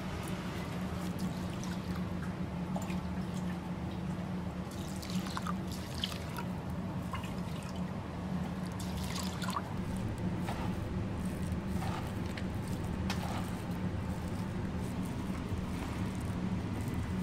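Water poured and dripping into stone rice pots of raw rice, with scattered light clicks and scrapes of a metal scoop against the stone pots, over a steady low hum.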